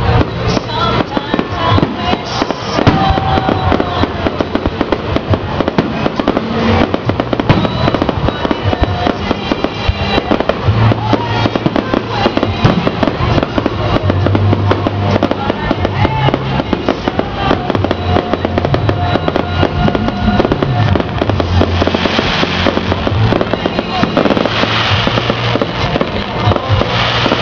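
Fireworks launching and bursting in quick succession, with dense crackling and popping, while music plays alongside with a steady bass line.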